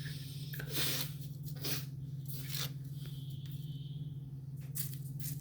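A steady low hum, with a few faint, brief clicks and scrapes as salt is spooned in.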